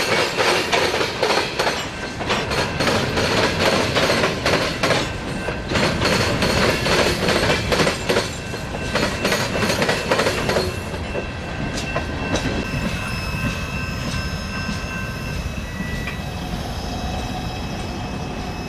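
Empty open coal hopper cars rolling past, their wheels clattering rapidly. About ten seconds in, the sound drops to a quieter steady rolling with thin, high, steady wheel squeals.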